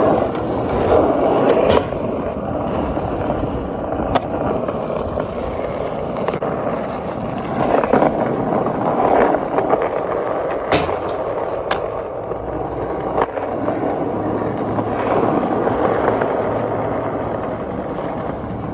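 Skateboard rolling over the skatepark's ramps and ground, a steady rolling rumble of the wheels. A few sharp clacks of the board or trucks striking come through it.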